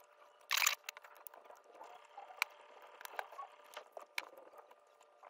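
Small clicks and taps of plastic opening tools and a suction-handle opener working at an iPhone 12's tough screen seal, with a brief louder scrape about half a second in.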